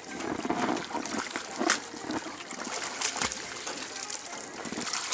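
Lake water splashing and sloshing around a swimmer in an inflatable ring beside a boat's hull, with a few sharper splashes, the loudest about a second and a half in.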